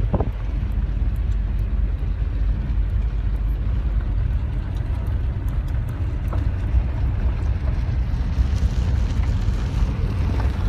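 Car driving on a dirt road, heard from inside the cabin: a steady low rumble of engine and tyres on the gravel surface.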